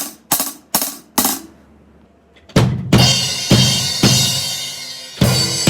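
Drum kit sound check: the fourth tom struck about four times in quick succession. After a short pause, a cymbal is crashed about six times, roughly twice a second, each crash still ringing when the next lands.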